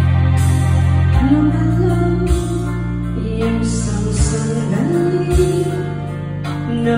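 Karaoke machine playing the backing track of a slow ballad: held bass notes under a melody line that moves from note to note.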